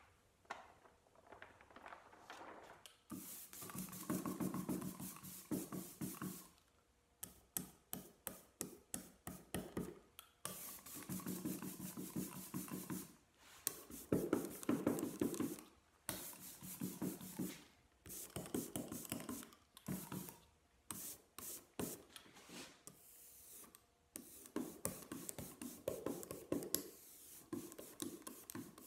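Hand ink roller (brayer) rolled back and forth over an inked relief printing block: runs of quick, repeated rubbing strokes with short pauses between them.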